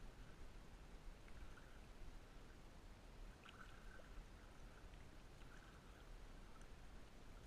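Near silence: faint low wind rumble and light water lapping around a float tube, with a few faint short high tones.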